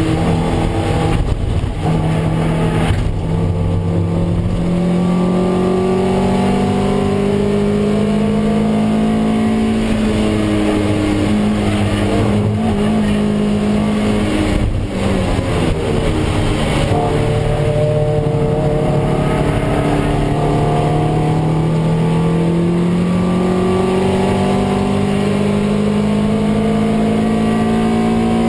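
Toyota MR2 Roadster race car's mid-mounted 1.8-litre four-cylinder engine at racing speed, heard inside the cabin. The engine note climbs under full throttle, drops briefly several times at gear changes and lifts for corners, then pulls in one long steady rise through the second half.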